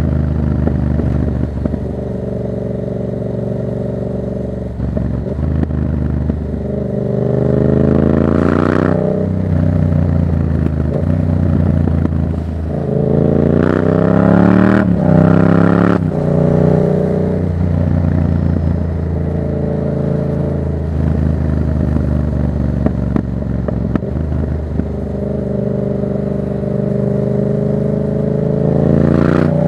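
2024 Yamaha MT-07's parallel-twin engine through a Black Widow exhaust with the dB killer removed, ridden on the road. It runs steadily with two accelerations, about seven and thirteen seconds in, where the revs climb and break off briefly at the shifts.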